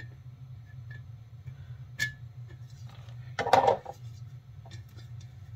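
A replacement muffler being fitted by hand onto a chainsaw: a sharp metallic click with a brief ring about two seconds in, then a louder half-second scraping clunk about three and a half seconds in, with a few light ticks after. A steady low hum runs underneath.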